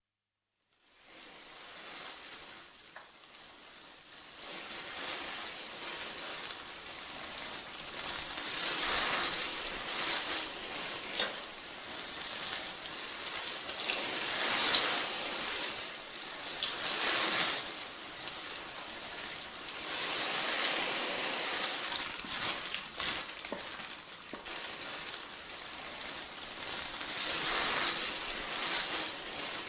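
Water sprinkling onto plants: a spray of water pattering on leaves and soil. It starts about a second in and swells and eases every few seconds.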